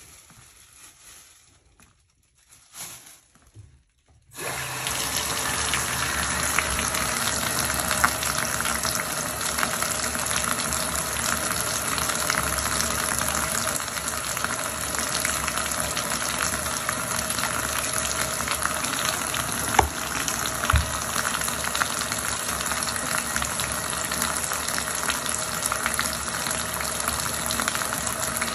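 Bathtub tap turned on about four seconds in, water then running steadily onto the tub floor and down the drain, with a couple of brief knocks partway through.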